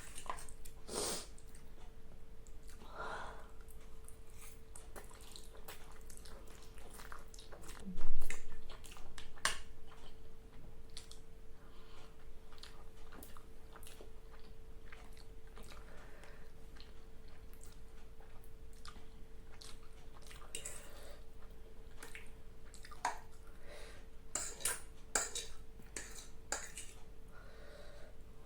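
Eating sounds: chewing, with scattered clicks and clinks of a utensil against dishware and one loud knock about eight seconds in, over a faint steady hum.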